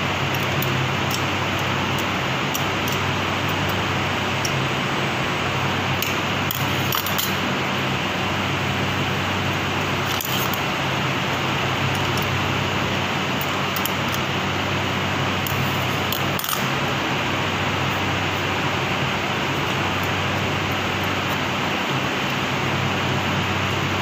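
Steady hum of workshop machinery, with a few light metallic clicks and clinks of hand tools against the steel adjusting parts of a paper straw packing machine.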